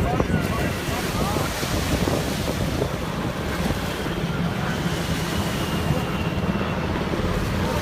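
Wind buffeting the microphone over a steady wash of surf, with faint voices.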